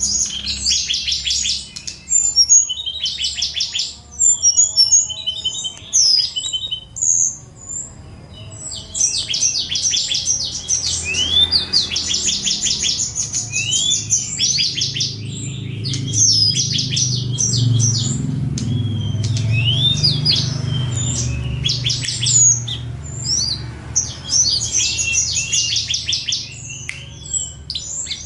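A songbird singing a long, varied song: fast trills of repeated high notes broken by short whistled up- and down-slides, with brief pauses between phrases. A low background rumble rises under the song through the middle and fades again.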